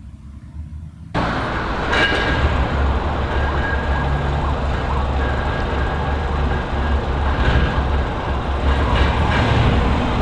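LiAZ-677M city bus's V8 petrol engine idling while the bus stands still: a steady, loud low rumble that starts abruptly about a second in.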